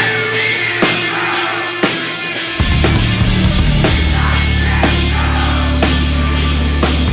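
Rock band playing live, with drum hits about once a second. A heavy low bass chord comes in about two and a half seconds in and is held.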